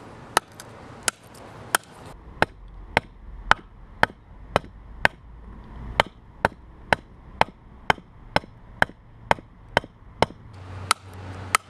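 A lightweight titanium dive knife (Wenoka Big Squeeze) chopping into a split log on a stump: about twenty sharp strikes, roughly two a second. The light blade is making little headway into the wood.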